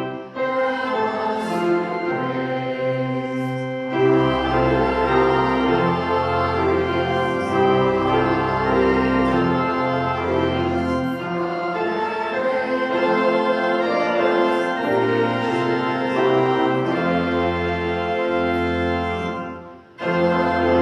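Church organ playing a hymn in full sustained chords over deep pedal bass notes, pausing briefly between phrases.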